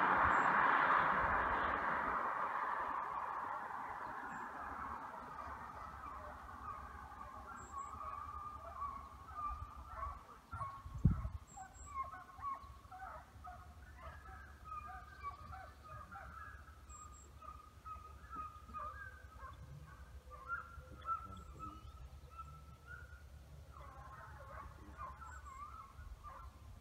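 A distant pack of hunting hounds baying while running game: a steady chorus of overlapping cries that becomes clear after the first several seconds. A rushing noise fades out over the first few seconds, and a single dull thump sounds about eleven seconds in.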